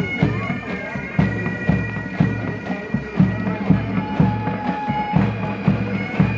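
Military pipe band playing a march: bagpipes sounding a held melody over their drones, with drums beating about twice a second.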